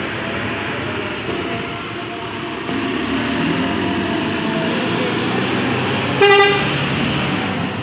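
Intercity bus engine running steadily. A short horn toot sounds about six seconds in.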